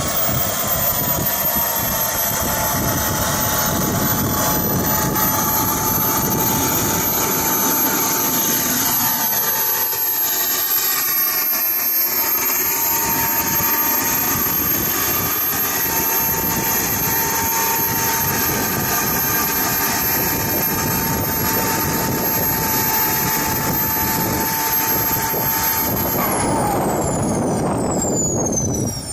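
Jet turbine engine of a hydro boat running with a steady high-pitched whine over a loud rushing noise. About 26 seconds in, the whine drops sharply in pitch.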